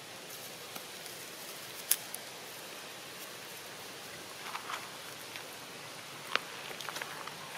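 Dry leaf litter crackling and rustling under moving macaques, heard as scattered crackles and a couple of sharp snaps (the loudest about two seconds in and again about six seconds in) over a steady hiss.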